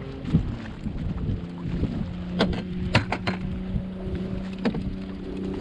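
Electric trolling motor on a bass boat humming steadily, with wind buffeting the microphone and several sharp knocks on the boat.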